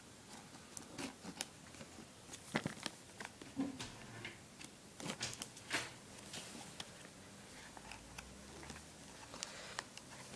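Small earphone retail box being handled and opened by hand: irregular clicks, taps and scrapes of the packaging, busiest in the first half.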